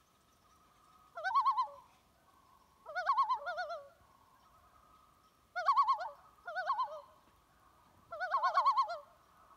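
A warbling, bird-like call repeated four times, about every two and a half seconds, over a faint steady tone.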